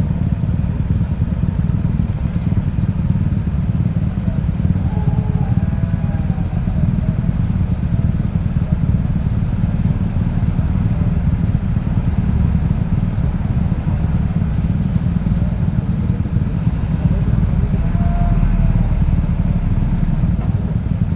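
Steady low rumble of a motorcycle and road traffic, with faint higher tones drifting in now and then.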